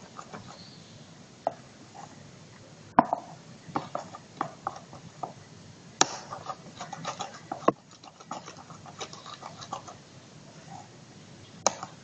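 Chopsticks stirring a wet slime mixture in a bowl: irregular clicks and taps against the bowl, with a few sharper knocks, as the mixture is worked until it thickens.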